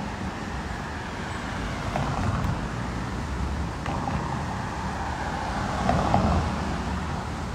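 Road traffic on a city street: cars passing, a steady rumble that swells a few times and is loudest about six seconds in.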